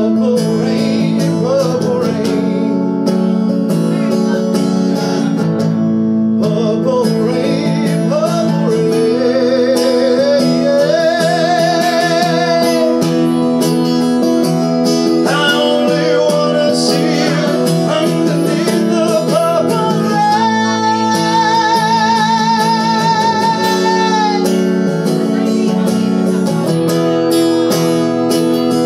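Acoustic guitar strummed steadily under a man's wordless singing, with long high notes held with a wide vibrato, twice.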